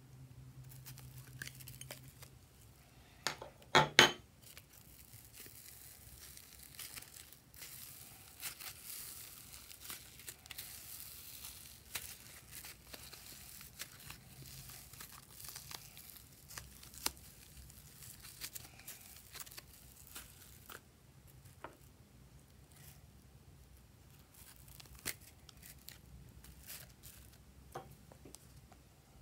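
Hands pressing and pulling purple slime over glitter and confetti in a glass bowl, with a fine crackling and crinkling. A few sharp clicks come about four seconds in.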